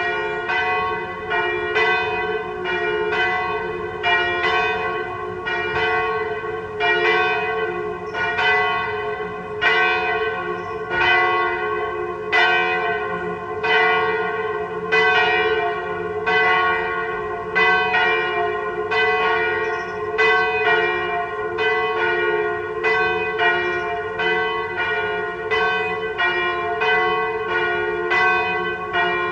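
Two swinging church bells pealing together: the 983 kg Sint-Martinus bell in F, cast by Michiels of Doornik in 1950, and the 771 kg Sint-Michaël bell in G-flat, cast by Van Aerschodt of Leuven in 1836, a semitone apart. Their strikes fall in a steady but uneven, overlapping rhythm, each stroke ringing on into the next.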